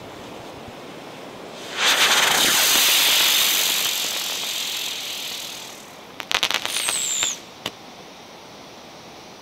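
Helicopter firework spinning aloft with a loud rushing hiss that starts about two seconds in and fades over the next four seconds. It ends in a starburst: a quick string of sharp crackling pops with a short falling whistle among them, then one last pop.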